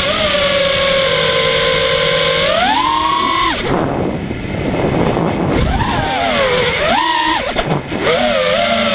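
FPV quadcopter's brushless motors (iFlight Xing-E 2207 1700KV) and propellers whining from the onboard camera. The whine holds steady, then rises in pitch and drops away into rushing air about three and a half seconds in, while the quad flips upside down. It comes back about two seconds later, rising and falling with the throttle.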